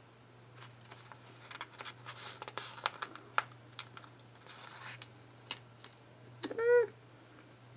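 Paper and sticker sheets being handled and peeled: a run of crinkling, rustling and small sharp clicks. Near the end comes a short hummed "mm" from a voice, the loudest sound here.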